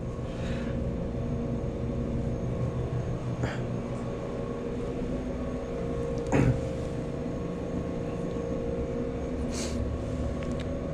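Steady mechanical hum with a few level tones in it, and a brief knock about six and a half seconds in.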